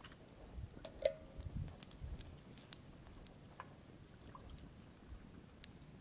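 Faint scattered crackles and soft knocks from a small twig campfire and from a thermos and cup being handled, with a short ring about a second in. Most of the clicks fall in the first three seconds.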